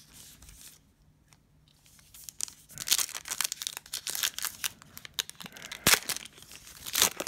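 Crinkling and tearing of a trading card pack's wrapper as it is torn open, with sharp clicks of cards being handled. It starts a couple of seconds in, after a quiet spell.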